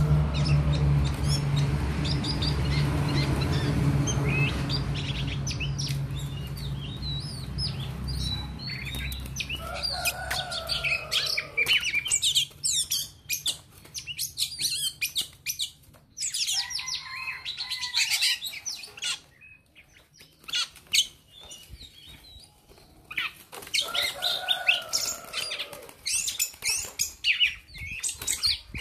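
A songbird's female calls: many quick high chirps with a few longer, lower calls at intervals. A low steady hum runs through the first several seconds.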